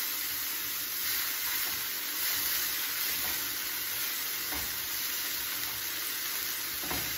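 Thinly sliced collard greens sautéing in hot oil and garlic in a frying pan, stirred with a fork: a steady frying sizzle with a few faint knocks.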